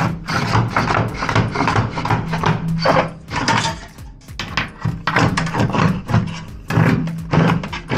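Corrugated plastic electrical conduit pulled hand over hand through a cavity, scraping and rattling in quick repeated strokes.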